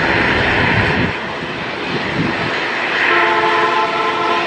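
ATR 72-600 turboprop engines and propellers running as the aircraft rolls along the runway: a steady rushing drone whose low rumble eases about a second in. About three seconds in, a steady multi-tone hum rises over it.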